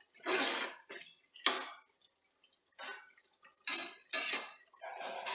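Metal spoon scraping against the inside of a pressure cooker while stirring chicken pieces with spices, in about six short, irregular strokes.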